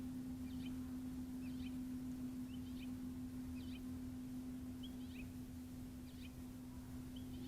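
A steady low hum under short, faint bird chirps that repeat roughly once a second.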